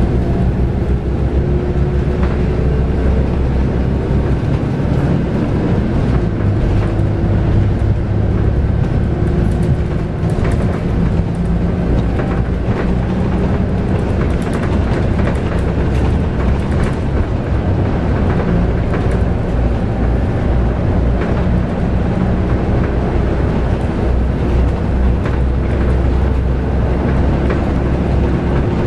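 Scania K280UB bus under way, its 9.3-litre five-cylinder DC9 diesel and ZF Ecomat six-speed automatic heard from inside the cabin. The engine note rises and falls as it drives, with short interior rattles throughout.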